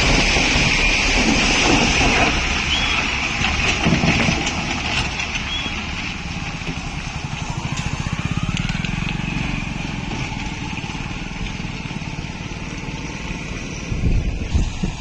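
A Tata lorry's diesel engine and its tyres splashing through a wet, potholed road as it passes close, loudest in the first few seconds. Then a motorcycle's small engine passes by with a steady low putter.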